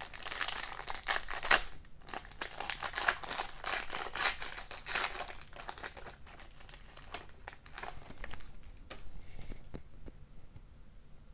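Foil wrapper of an O-Pee-Chee Platinum hockey card pack being torn open and crinkled by hand for about five seconds. Then quieter rustles and small clicks as the cards are slid out and handled.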